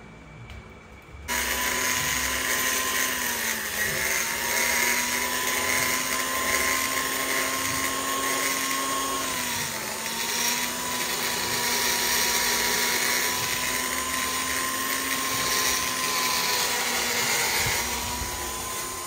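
Flexible-shaft rotary grinder whining at high speed as it ports a three-valve motorcycle cylinder head, the bit grinding inside the port. It starts about a second in, and its pitch sags briefly twice as the bit bites into the metal.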